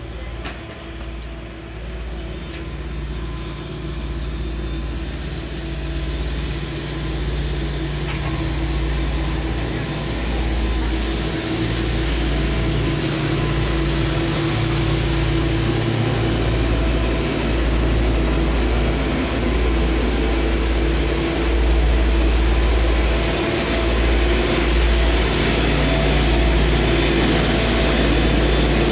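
An engine running steadily with a deep rumble, growing slowly louder.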